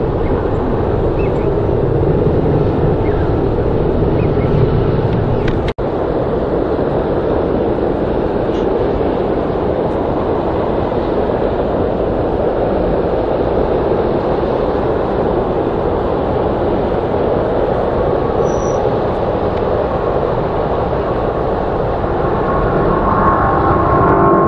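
Jet airliner engines at takeoff power, a loud steady roar that drops out for an instant about six seconds in, then runs on as a JetBlue Airbus A321 lifts off and climbs out, with an engine whine coming up near the end as it passes closer.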